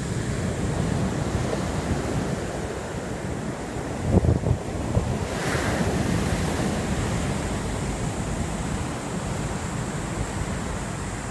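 Surf breaking and washing up a beach, with wind rumbling on the microphone; a few louder low thumps of wind or handling about four seconds in.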